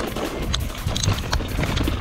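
Mountain bike rolling fast down a rocky dirt trail: a steady rumble of tyres and wind with quick rattling clicks from the bike's chain and frame as it goes over stones.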